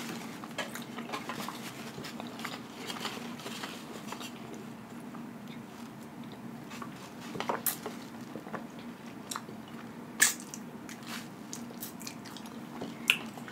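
Close-miked eating sounds: chewing with small wet clicks, and a sip through a straw, over a faint steady hum. A few sharper crackles stand out around the middle and near the end.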